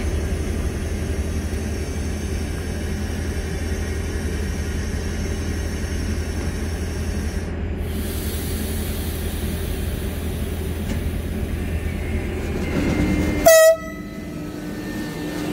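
Electric commuter train standing at the platform with a steady low hum from its equipment. About three-quarters of the way through, one short, loud train-horn blast sounds, and the hum then drops away.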